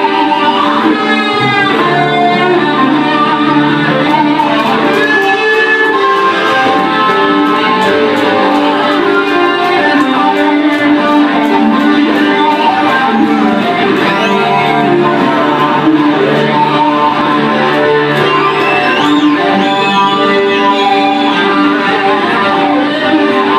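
Two amplified acoustic guitars playing an instrumental duet live, one carrying a fast-moving lead melody over the other's chordal accompaniment.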